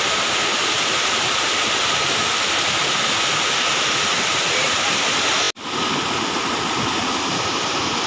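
Steady rushing of a shallow river flowing over stones. It cuts out abruptly for a moment about two-thirds of the way through, then goes on as a small waterfall splashing down over rocks.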